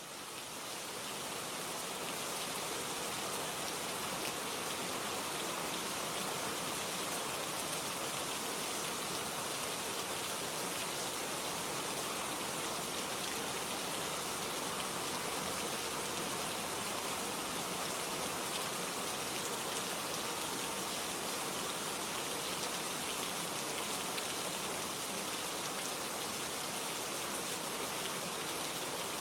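Steady rainfall, a dense even hiss of drops across the whole range, fading in over the first couple of seconds and then holding constant.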